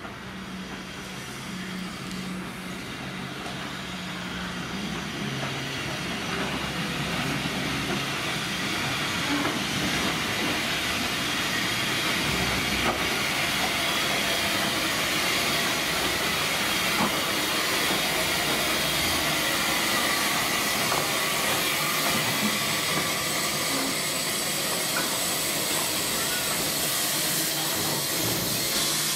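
Tasmanian Government Railways C-class steam locomotive C22 hissing steam, growing louder over the first ten seconds as it draws alongside, then a steady hiss.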